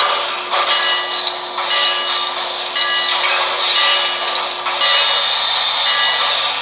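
K-Line O-scale New York Central Hudson model steam locomotive running slowly, with a steady, loud steam hiss and a lower held tone that sounds for about four seconds in the middle.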